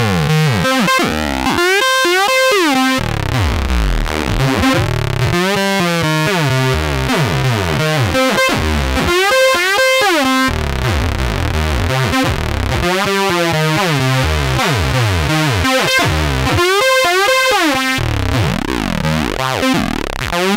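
Squeaky, whiny 303-style synth sequence from FL Studio's 3xOsc saw waves, with sliding notes gliding in pitch, in a pattern that repeats every few seconds. It runs through the Fruity Flanger, whose delay, depth and rate are being changed as it plays, so the sweeping flanger colour shifts.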